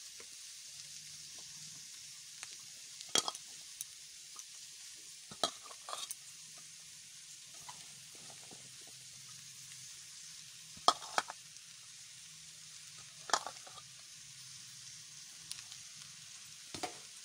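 Rice, vegetables and egg sizzling gently in a steel kadai, a steady frying hiss. A metal spatula knocks and scrapes against the pan in a handful of sharp clicks as the rice is stirred in.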